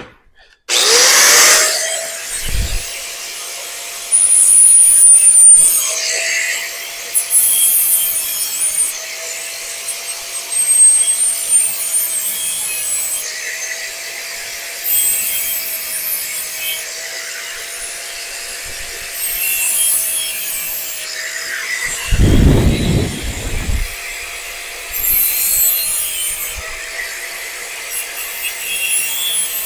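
Corded angle grinder with a cut-off wheel switching on about a second in and running steadily, with repeated loud, hissy passes as the wheel bites into the end of a thin steel exhaust tube to cut wedges in it. One low thump comes about two-thirds of the way through.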